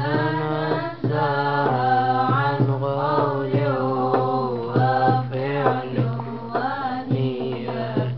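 A group of boys singing a tawshih, an Arabic devotional song, as one melody line with melismatic turns, punctuated by hand-drum strokes.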